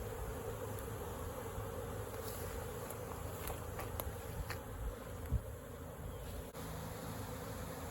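Steady hum of a large honey bee swarm, many bees buzzing close around the microphone while the swarm is disturbed during capture. A few light clicks and a single thump about five seconds in.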